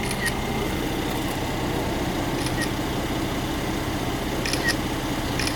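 Car engine idling steadily, with a few short, high clicks on top of it.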